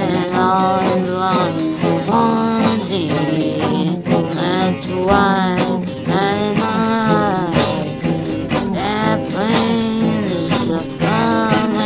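Background music: a song with a singing voice over instrumental backing and percussion.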